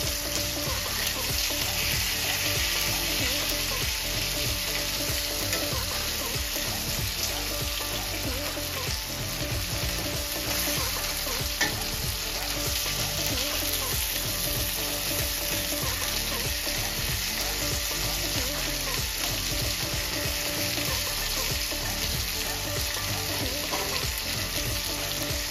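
Pomfret pieces shallow-frying in a little oil in a nonstick pan over a medium flame: a steady sizzle, with one sharp click about halfway through.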